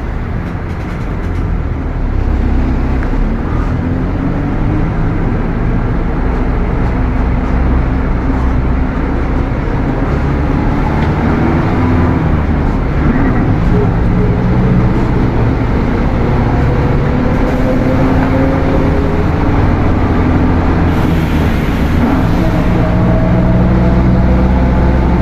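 Mercedes-Benz OF-1721 bus's front-mounted diesel engine pulling under load, with a loud transmission growl. The pitch climbs as the bus gathers speed and drops back at the gear changes, rising again near the end.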